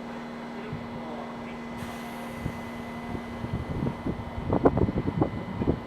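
A train on the Tokaido Main Line running by over a steady hum, its wheels knocking over rail joints in an irregular run that starts about three seconds in and grows loudest near the end.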